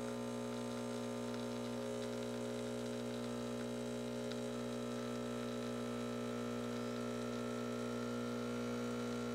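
Breville Barista Express's vibratory pump humming steadily as it pushes water through the coffee puck during a double espresso shot. The pump is working against a grind the owner puts at the borderline of choking.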